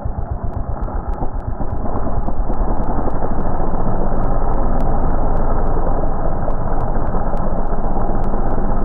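An engine running with a rough, low rumble, growing louder about two seconds in and then holding steady, with faint clicks over it.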